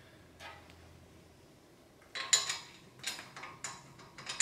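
Small metal hardware and tools handled against a steel seat bracket: a faint scrape, then from about halfway a run of sharp metallic clinks and scrapes.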